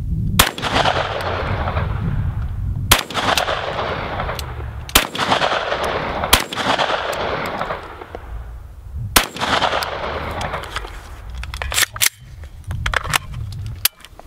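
AR-style semi-automatic shotgun firing .410-bore (36-gauge) shells: about eight single shots spaced one to three seconds apart, each followed by a long echo.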